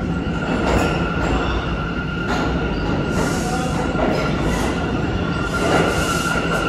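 New York City subway train pulling into an underground station: a steady rumble of wheels on rails with a high, steady wheel squeal held over it.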